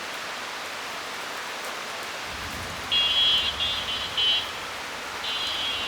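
Steady rain with a low rumble of thunder coming in about two seconds in and going on underneath. Twice over it, a high chirping trill stands out above the rain.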